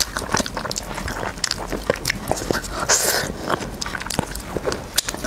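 Close-miked mukbang eating sounds: braised chicken drumstick meat torn from the bone by gloved hands and chewed, with many quick wet mouth clicks and smacks and a louder hissy sound about three seconds in.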